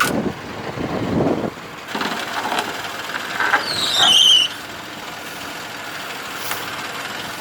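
Old Kubota tractor running under load as it tries to lift a rock that is too heavy for it on its forks. There is a knock and clatter in the first second or so, and a short, high, falling squeal about four seconds in.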